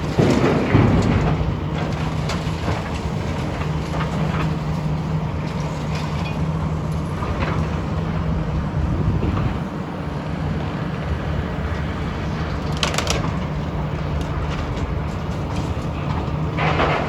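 Heavy demolition machinery running steadily with a held engine tone, with crashes and clatter of falling debris at the start, about two-thirds of the way in and near the end.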